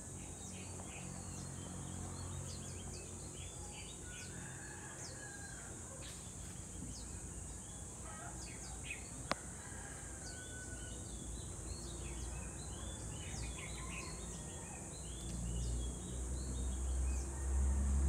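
Outdoor ambience of many small birds chirping over a steady high-pitched insect buzz. A sharp click sounds about nine seconds in, and a low rumble swells near the end.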